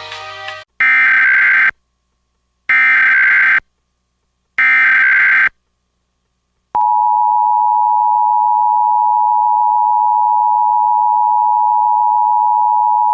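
Emergency Alert System tones: three short bursts of SAME digital header data, each under a second and about two seconds apart, encoding a severe thunderstorm warning. About seven seconds in, the steady two-tone EAS attention signal (853 and 960 Hz) starts and holds.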